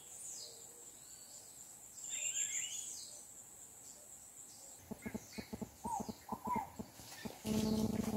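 Birds chirping in short falling notes over a steady high insect-like whine, then, about five seconds in, a rapid run of short lower calls at about four a second. Near the end a louder, fuller noise comes in.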